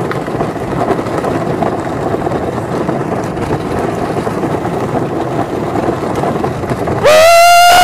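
Toy car's wheels rolling and rumbling down cracked asphalt, a steady rough noise. About seven seconds in a very loud, held yell cuts in, rising into a steady pitch.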